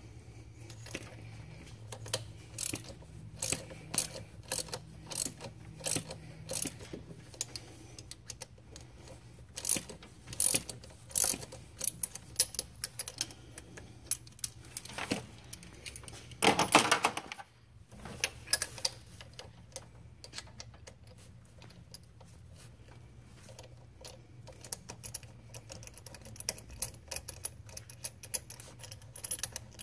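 Scattered metal clicks and clinks of hand tools, a wrench on a T50 Torx bit and a 24 mm pass-through socket, working an alternator pulley's centre nut loose. A louder rattle of about a second comes near the middle, over a low steady hum.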